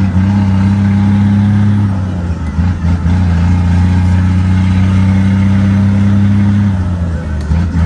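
Scania 124 truck's straight-piped straight-six diesel running under way, heard from inside the cab. Its note holds steady, then dips and breaks up about two seconds in and again near the end as gears are shifted.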